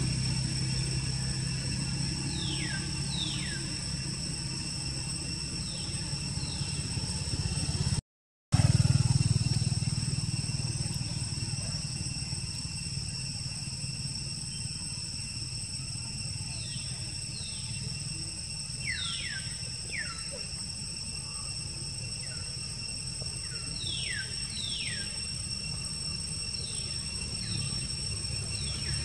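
Outdoor ambience: a steady low rumble and a steady high-pitched whine, with short squeaky calls that fall quickly in pitch, coming in pairs and small groups a few times. The sound cuts out for a moment about eight seconds in.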